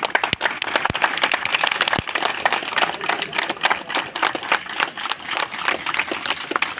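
A crowd applauding: many hands clapping in a dense, uneven patter.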